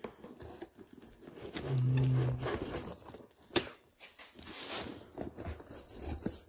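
Tools clinking and scraping as hands rummage through a tool bag to pull a tool out, with a sharp click about three and a half seconds in. A short low hum sounds about two seconds in.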